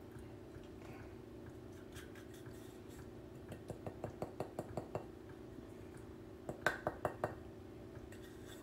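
Light clicks and taps of a small metal moka-pot coffee funnel as spent espresso grounds are scraped and tapped out of it: a run of quick ticks from about three and a half to five seconds in and a few more near seven seconds, over a faint steady hum.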